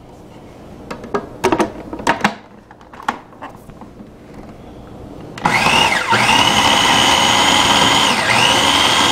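A few clicks and knocks as the food processor's lid is put on. About five seconds in, its motor starts and runs loudly with a high whine, pulsing breadcrumbs, cream cheese and seasoning. The whine dips and recovers twice.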